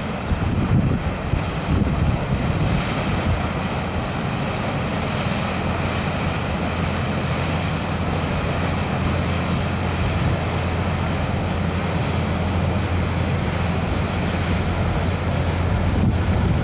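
Diesel engine of a passing inland motor cargo vessel: a steady low drone, growing stronger after the first few seconds as the ship comes abreast. Wind buffets the microphone, in uneven gusts in the first couple of seconds.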